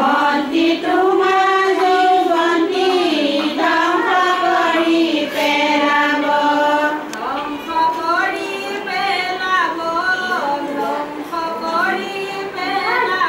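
Group of women singing together without instruments: an Assamese wedding song, with long held notes that bend in pitch.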